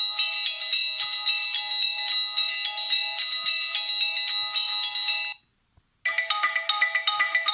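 Default polyphonic ringtone of a Samsung GT-C3590 phone: a quick, bright chiming melody over held tones, which cuts off suddenly about five seconds in. After a short silence, the next ringtone in the set begins, another tune of quick notes.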